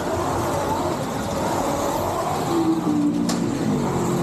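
Slot cars racing on the track: their small electric motors whine, rising and falling in pitch as the cars speed up and slow for corners. A sharp click sounds about three seconds in.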